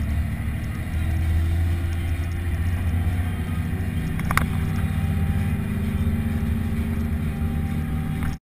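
JCB Fastrac 1135 tractor's diesel engine running as the tractor drives along, a steady low drone that gets a little louder about a second in. A single sharp click sounds about four seconds in, and the sound cuts off suddenly near the end.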